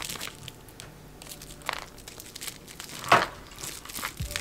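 Plastic wrapping and bubble wrap crinkling and crackling in the hands as a puzzle-cube box is unwrapped. It comes in irregular bursts, the loudest about three seconds in.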